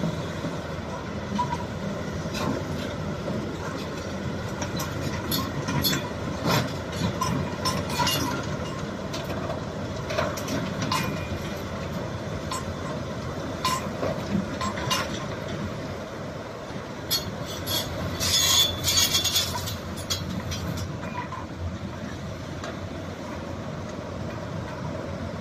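Shantui excavator working: a steady machine noise with irregular metallic clanks and knocks, and a high metallic squeal lasting about two seconds about two-thirds of the way through.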